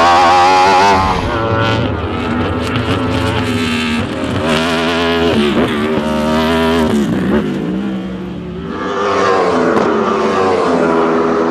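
Wolf GB08 Thunder sports-prototype racing car's engine at high revs. It is loud and close for the first second, then quieter and farther off, rising and falling in pitch as the car accelerates and lifts.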